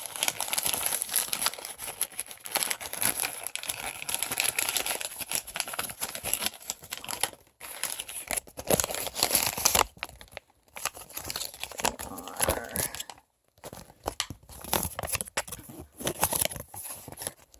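A Kitten in My Pocket blind-bag pack being torn open and its packaging crinkled and handled, with a few short pauses.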